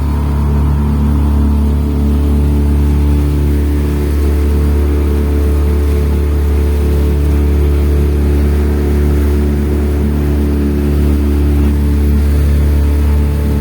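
Motorboat engine running steadily at an even speed, a loud low drone whose pitch holds constant.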